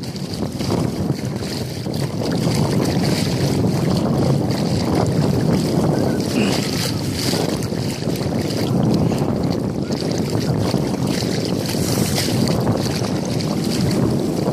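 Wind buffeting the microphone over the swishing and sloshing of legs wading through shallow seawater, with uneven surges in the noise.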